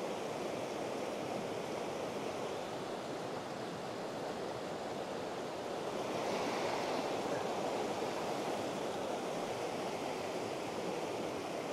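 Fast, shallow river water rushing over stones in a steady hiss, swelling a little about six seconds in.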